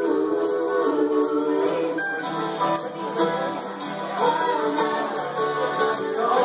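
Live acoustic string band: a woman singing over acoustic guitar and mandolin.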